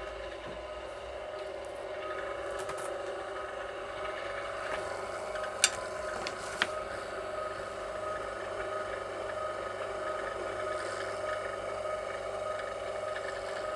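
VEVOR electric wire stripping machine's motor running steadily as copper wire is fed through, with two sharp clicks about a second apart near the middle.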